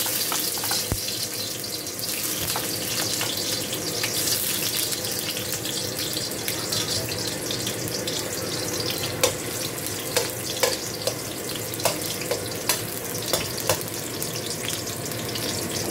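Sliced red onion frying in hot oil in a stainless steel wok: a steady sizzling hiss with crackles. In the second half come several sharp taps of a metal spoon against the pan as the onion is stirred.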